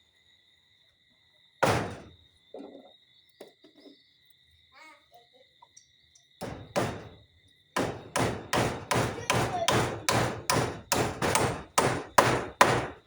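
Hammer driving nails: a single blow, a pause with a few soft knocks, two more blows, then a quick run of about fourteen strikes at about three a second. Crickets chirp steadily underneath.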